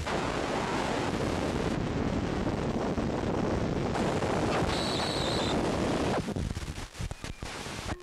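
Loud, steady rushing and rumbling noise on the phone's microphone, with a brief high, whistle-like tone about five seconds in; the noise turns choppy and broken for the last two seconds.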